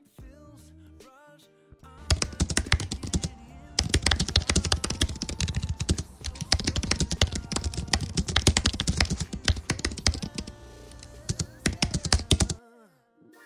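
Fast computer-keyboard typing: a dense run of key clicks that starts about two seconds in, pauses briefly, then runs on steadily and stops shortly before the end, over quiet background music.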